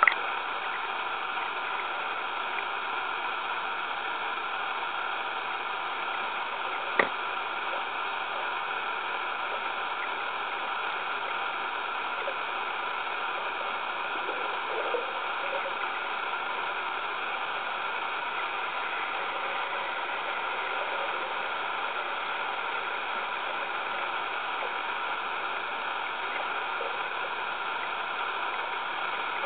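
Steady underwater hiss picked up by a submerged camera, with one sharp click about seven seconds in.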